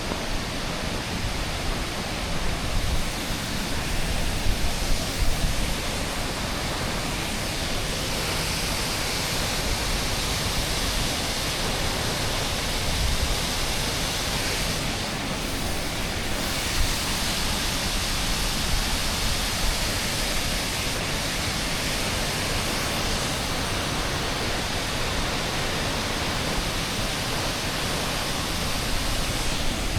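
Waterfall rushing steadily, an even hiss of falling water. A few brief low thumps about three to five seconds in.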